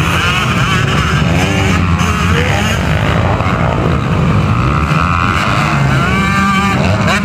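Several motocross dirt bike engines revving hard together, their pitch repeatedly climbing and dropping as the riders work the throttle and shift.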